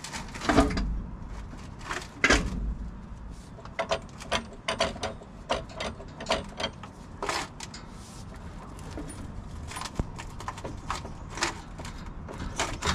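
Irregular metal clunks, clicks and knocks as a driveshaft and the SM465 transmission and transfer case are shifted and wiggled back on a floor jack, with two heavier thumps in the first couple of seconds.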